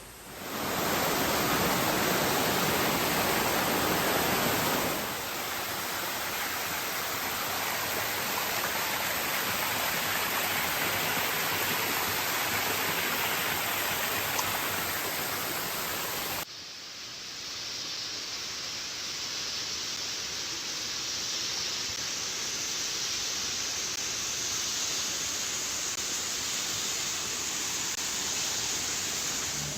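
Rushing water, a steady, even noise like a cascade or river, with sudden changes in level and tone about five and about sixteen seconds in.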